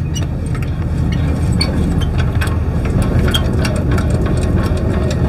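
Engine idling steadily with a low rumble, with scattered light clicks and ticks from the trailer's tongue-jack crank.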